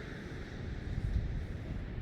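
Wind buffeting the microphone in uneven gusts over a steady rush of sea water.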